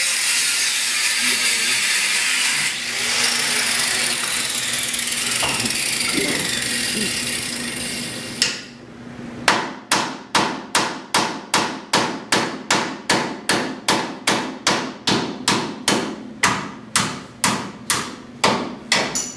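Grinder cutting into metal, a steady high hiss for about eight seconds. It then stops, and a hammer strikes repeatedly at about two blows a second, each hit ringing briefly.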